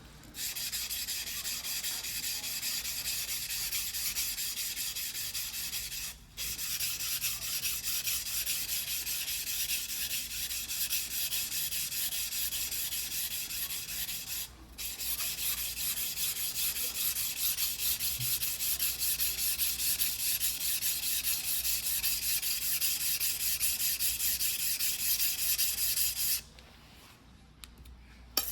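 Steel yanagiba blade being ground against a whetstone: a continuous high scraping, broken by two short pauses, that stops shortly before the end.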